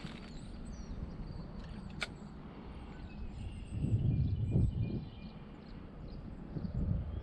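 Wind buffeting the microphone as a low rumble that swells in a gust about four seconds in, with faint high bird chirps over it and a single sharp click about two seconds in.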